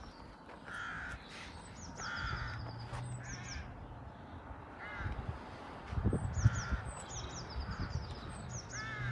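Crows cawing repeatedly with short gaps, mixed with higher bird chirps. A burst of low rumbling thumps comes about six seconds in.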